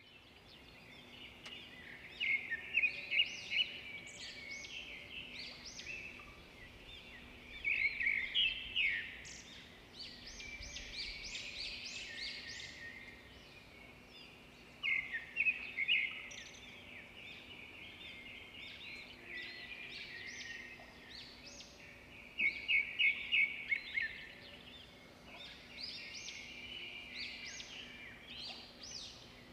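Birds chirping in repeated bursts of quick, high chirps, with a faint steady low hum underneath.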